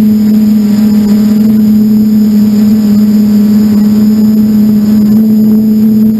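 Electric motors and propellers of an FPV model aircraft, heard from its onboard camera: a loud, steady hum holding one pitch throughout.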